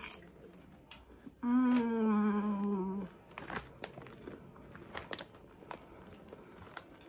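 A woman hums a long "mmm" of enjoyment, starting about a second and a half in and sinking a little in pitch for about a second and a half, while chewing chocolate-coated popcorn. Scattered crunches of chewing and the crinkle of a foil snack bag follow.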